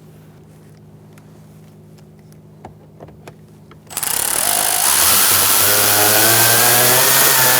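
A few faint handling clicks, then about four seconds in a cordless power screwdriver starts and runs steadily with a whining motor, driving in a screw.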